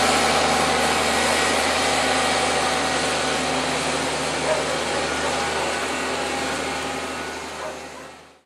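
Fendt 820 Vario tractor running steadily under load while injecting slurry, a continuous engine drone with hiss. The sound fades out near the end.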